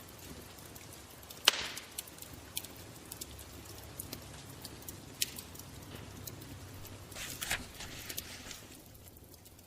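Wood fire crackling, with a low steady rumble under scattered small crackles and a few sharper snaps, the loudest about one and a half seconds in.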